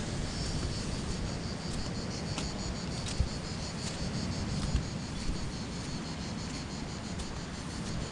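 Insects chirping in a steady pulsing rhythm, high-pitched, over a low rumble of wind on the microphone. A few soft knocks of footsteps on the sandy path come through.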